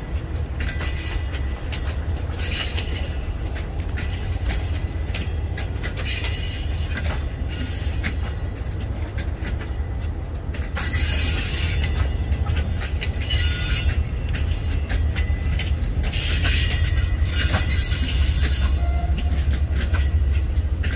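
Passenger train of new Chinese-built coaches rolling past, with a steady low rumble and louder bursts of wheel-on-rail noise every few seconds. It grows louder about halfway through.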